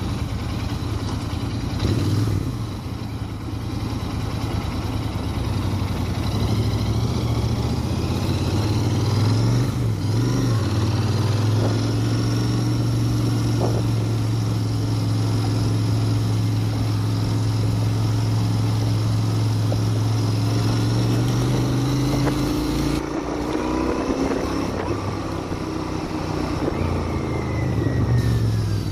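Royal Enfield Interceptor 650's 648 cc parallel-twin running through its original exhaust while being ridden. The engine note dips and rises about ten seconds in, holds a steady pitch for about twelve seconds, then climbs as it accelerates near the end.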